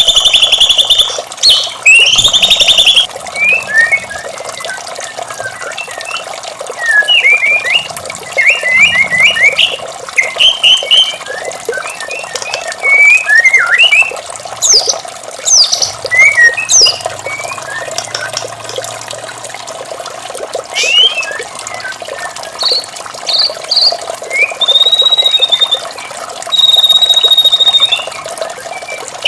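White-rumped shama (murai batu) singing: loud, varied whistled phrases and quick chattering notes, with a couple of long held high notes near the end. A steady sound of running water plays underneath.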